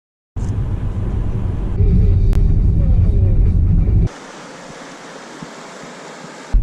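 Low rumbling road and wind noise, as from a moving vehicle, getting louder about two seconds in. It cuts off suddenly near four seconds to a quieter, steady hiss.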